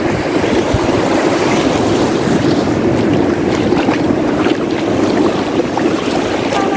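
Steady wash of surf breaking on a sandy beach, with wind buffeting the microphone.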